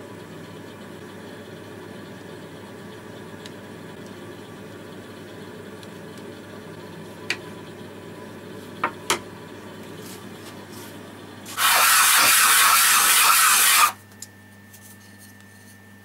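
Steady background hum with a few sharp clicks as plastic quick-grip bar clamps are squeezed onto a glued wooden cube frame. Then a loud, even hiss lasting about two seconds cuts off suddenly.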